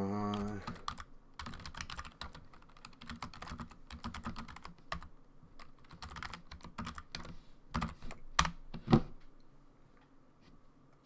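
Typing on a computer keyboard: a run of quick key clicks, with a few much louder knocks about eight to nine seconds in.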